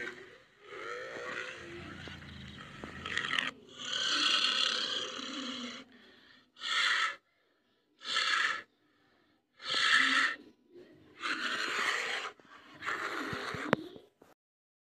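Two brown bears vocalising as they wrestle on their hind legs: rough, breathy huffs and growls. Two longer stretches come first, then five short bursts with pauses between them, stopping a little before the end.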